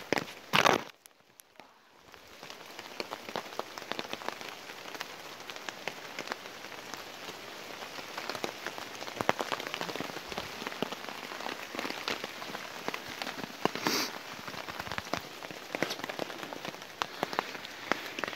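Rain pattering close by, on a waterproof jacket and tarp: a steady haze of many small taps. Two louder scuffs break through, one just under a second in and one around fourteen seconds.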